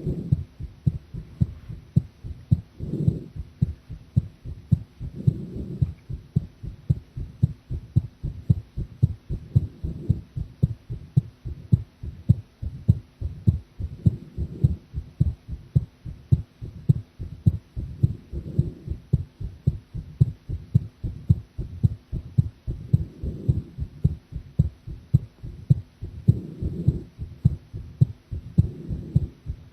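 A woman's heartbeat picked up close at the chest: a steady train of short, low lub-dub beats, with a softer, broader swell rising under them every few seconds.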